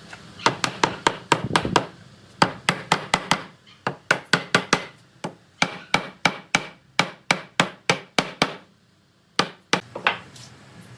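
A hammer striking wood in quick runs of blows, about four or five a second, with short pauses between the runs.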